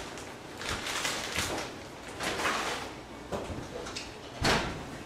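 Kitchen oven door being opened and shut, with a metal mixing bowl lifted out and handled, giving scattered knocks and rustles. The sharpest knock comes near the end.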